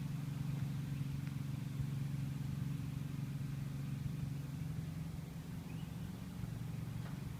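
An engine running steadily at a low pitch, its hum easing slightly about five and a half seconds in.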